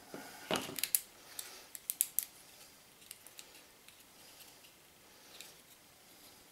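Laser-cut 6 mm MDF puzzle pieces clicking and knocking against each other as they are pulled apart and handled. A cluster of sharp clicks comes in the first couple of seconds, then only faint, scattered taps.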